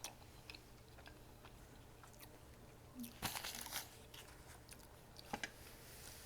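Close-up eating: a crunchy bite a little over three seconds in, with faint chewing and mouth clicks around it.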